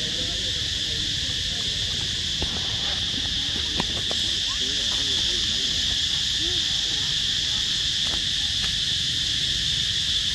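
A steady, high-pitched insect chorus drones without a break over a low background rumble. A few faint short calls and light clicks come through near the middle.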